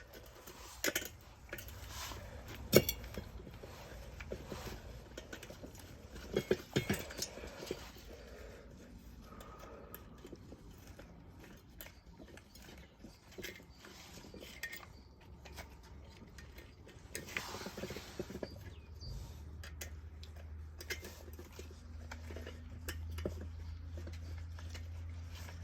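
Metal parts of a diesel heater's burner clinking and knocking as they are handled and fitted back together, with the loudest knock about three seconds in. A low steady hum starts about three-quarters of the way through.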